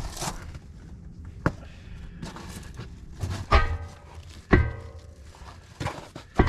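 A few sharp metal clanks from heavy steel wheel parts being handled during tire mounting. The two loudest, near the middle, each ring on briefly.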